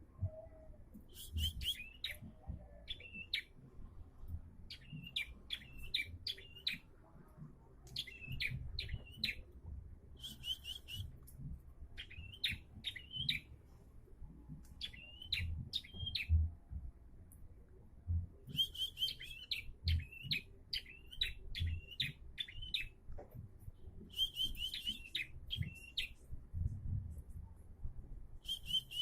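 Prenjak (prinia) singing phrases of sharp, high chirping notes, one phrase every second or two with short pauses between, over a low rumble.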